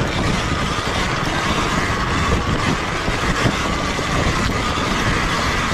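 Sur-Ron Ultra Bee electric dirt bike ridden over a rocky trail: a steady whine from the electric motor and chain drive over a constant clatter and rattle of the bike crossing loose rocks.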